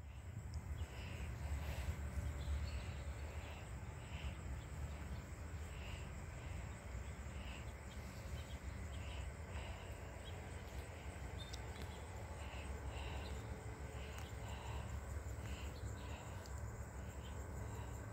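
Faint outdoor ambience: insects chirping in short, regular pulses a little over once a second, over a steady low rumble.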